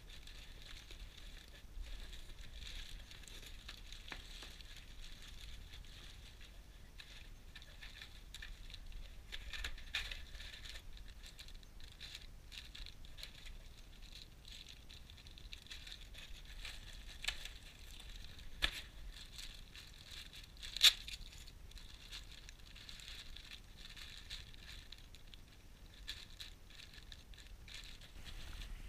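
Faint rustling and crinkling as the RC plane's packaging and parts are handled, with a few sharp clicks and taps, the loudest about three-quarters of the way through.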